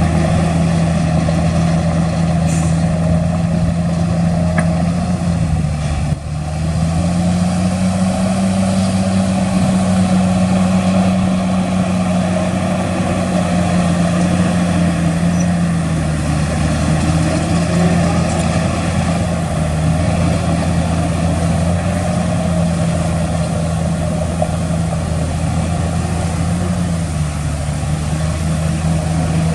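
Heavy diesel engine of earthmoving machinery running under load, its speed stepping up and down several times, with a brief drop about six seconds in.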